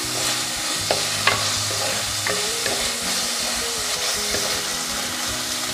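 Tomatoes, green chilli and curry leaves sizzling in hot coconut oil in a clay pot as a wooden spatula stirs them, scraping and knocking against the pot a few times in the first half.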